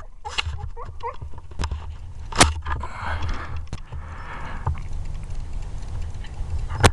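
Two loud, sharp snaps from a .22 air rifle, about four and a half seconds apart, with a few fainter clicks between them over a low steady rumble.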